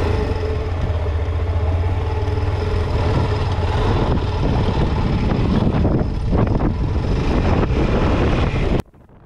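Honda Falcon 400's single-cylinder four-stroke engine running steadily as the motorcycle rides on, with a strong low drone; the sound cuts off suddenly near the end.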